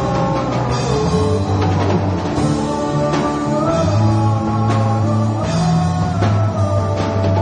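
Rock band playing together: a drum kit beating out a steady rhythm under sustained low guitar notes, with sliding pitched lines above.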